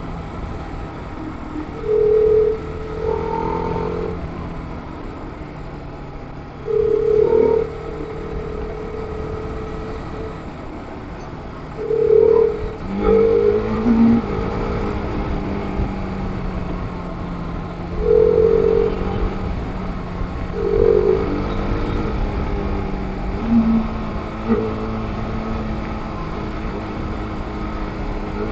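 TVS Apache RR 310's single-cylinder engine running at riding speed, heard from on the bike with wind noise. A horn gives short honks every few seconds, about nine in all. The engine note rises about halfway through.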